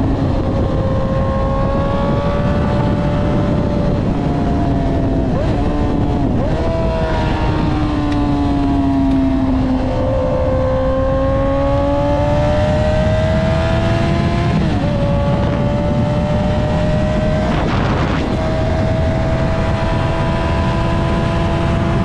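Sport bike engine running hard at highway speed, its pitch climbing and then dropping sharply at several gear changes and throttle blips, over a heavy rush of wind and road noise.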